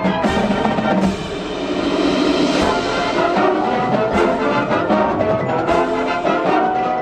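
High school marching band playing, with brass holding sustained chords over front-ensemble mallet percussion, timpani and sharp percussion strikes.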